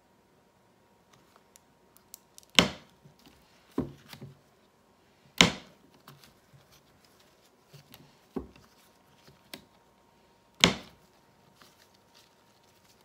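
Sharp wooden knocks from a wire soap cutter as its wooden arm is brought down through the soap loaf and strikes the frame: three loud knocks a few seconds apart. Softer taps and rustling come in between as the soap is pushed along the plastic liner.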